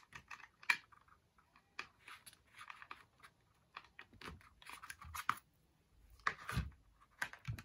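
Hands fitting controller wire leads to HO-scale model railroad track: scattered small clicks, scrapes and rustles of plastic and wire, with a soft bump about six and a half seconds in.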